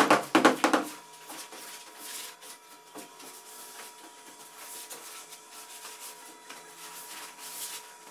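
Palms rubbing and smoothing across a thick slab of upholstery foam: a soft, dry rustle that swells and fades with each slow stroke. A drum-driven music track stops about a second in.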